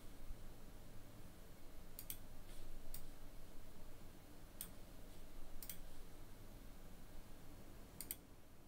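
Computer mouse clicks, about eight short sharp clicks, several in quick pairs, over a faint steady background of room noise picked up by the microphone.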